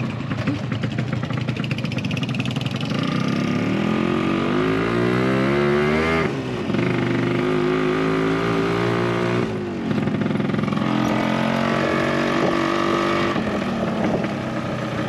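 Small motorcycle engine pulling away and accelerating through the gears. Its pitch climbs, drops at a gear change about six seconds in, climbs again, drops at a second shift near ten seconds, then holds steady.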